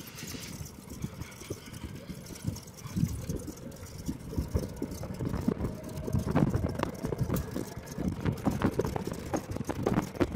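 Golf cart driving over rough dirt ground, its body and windshield rattling and knocking irregularly; the rattling gets louder from about three seconds in.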